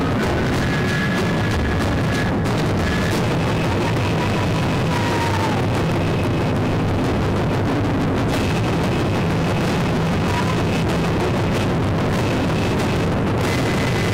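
Taiko drum ensemble drumming loudly and without a break on large barrel drums, with a transverse flute playing long held high notes over it.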